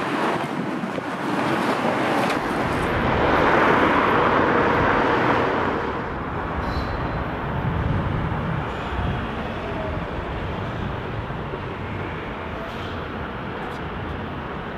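City street traffic noise: a steady wash of passing cars, swelling for a couple of seconds a few seconds in, then settling.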